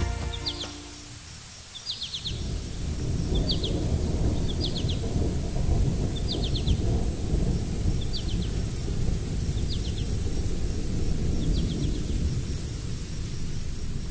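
Distant thunder rumbling low and steadily during a summer thunderstorm, while a small bird repeats a short call of three or four quick descending notes about once a second. A high, fast-pulsing chirring joins about halfway in.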